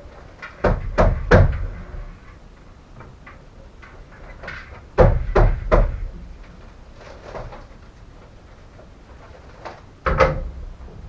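Knocks and clunks of work on an old car: three clusters of two or three sharp impacts, about a second in, about five seconds in and near the end, with quieter handling noise between.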